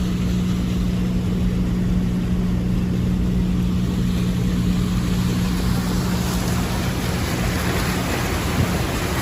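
An engine or motor running steadily with a constant low hum that fades out about eight seconds in, over an even rushing noise.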